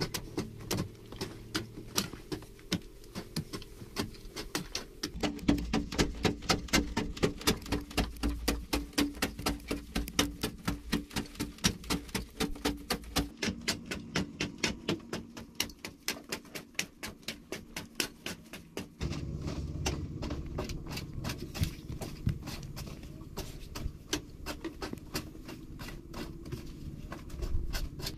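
A hand digging hoe striking and chopping into packed clay earth over and over, a quick regular rhythm of about three or four blows a second.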